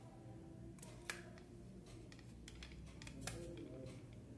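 Light clicks and taps of a plastic meat injector and tenderizer being handled and turned over in the hands, with a sharper click about a second in.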